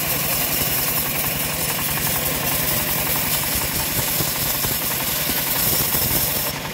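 Homemade bandsaw sawmill running, its drive engine beating in a fast, steady low pulse as the blade cuts along a log.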